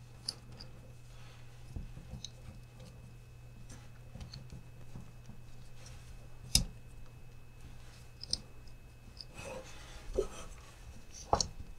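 Small plastic and metal parts of a Traxxas TRX-4M's front axle handled by gloved hands: scattered faint clicks and taps, one sharp click about halfway through, and a brief rustle near the end.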